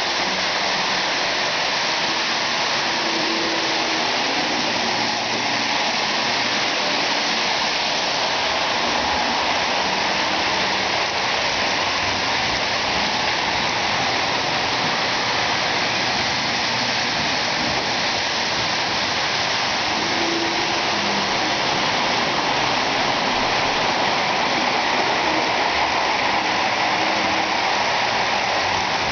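Lionel O-gauge die-cast 4-4-2 locomotive and its passenger cars running on metal three-rail track: a loud, steady rushing roar of wheels rolling on the rails.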